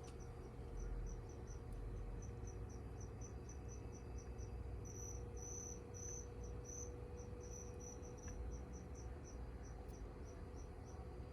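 A cricket chirping: a run of short high chirps at about four a second, louder for a couple of seconds in the middle and stopping shortly before the end, over a faint steady electrical hum.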